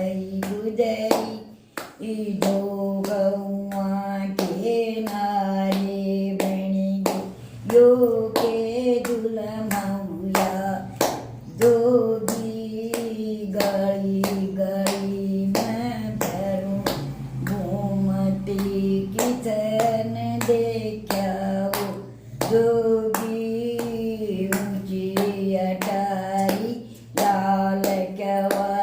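A woman singing a Hindi devotional bhajan unaccompanied, with steady hand claps keeping the beat.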